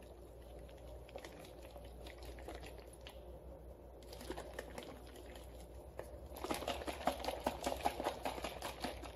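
Chia seeds and almond milk sloshing inside a lidded plastic tub as it is shaken by hand to mix them. The sound is faint at first and grows louder and busier over the last few seconds.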